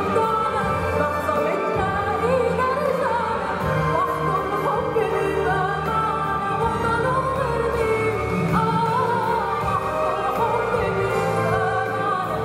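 Orchestral music with a singing voice over it.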